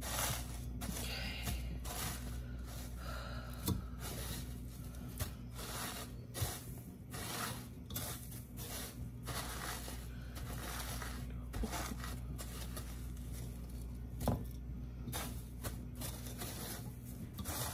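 Fingers pressing and patting chicken tenders into panko breadcrumbs in a pan, the crumbs rustling and scraping against the pan with a few sharper taps, over a steady low hum.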